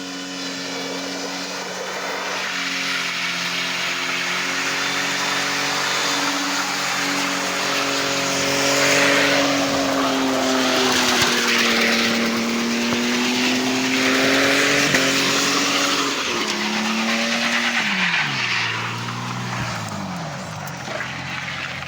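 Ford AU Falcon XR6 straight-six held at high revs in a burnout, with tyres squealing and scrabbling; the tyre noise swells in the middle. Near the end the revs drop sharply and the engine note falls away.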